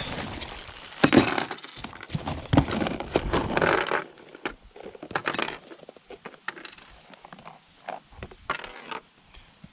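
Bagged metal ramp brackets and bolts being handled and shifted about in a cardboard box: plastic bags rustling and metal parts clinking, busiest in the first few seconds, then scattered clinks.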